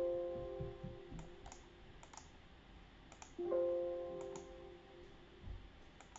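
Two computer alert chimes about three and a half seconds apart, each a short chord that starts sharply and fades over about a second and a half, with light mouse clicks scattered between them.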